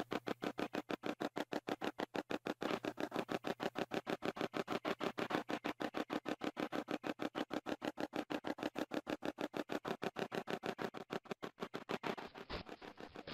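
A 'Hack Shack' spirit box, a modified portable radio, sweeping continuously through stations: a fast, even chopping of static and radio fragments, about ten a second. There is a low thump near the end.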